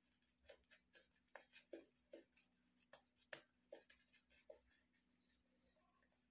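Badger-hair shaving brush working shaving-soap lather on a stubbly face: faint, irregular short strokes, roughly two a second.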